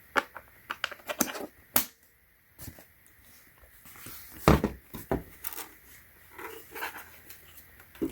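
Plastic clicks, taps and knocks of a wireless keyboard being handled, in irregular clusters, with the loudest knock about halfway through.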